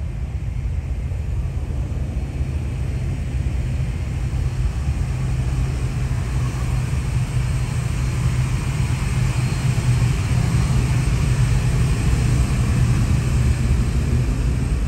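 Boeing 737-800's CFM56-7B jet engines heard from the ground on departure: a steady deep rumble with a hiss above it, growing slowly louder and brighter.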